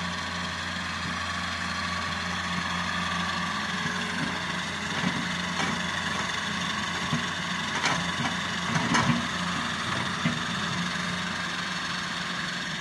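Fiat-Hitachi wheeled excavator's diesel engine running steadily as it works, with a string of knocks and thuds in the middle as the bucket tips its load of soil into the dump truck's bed.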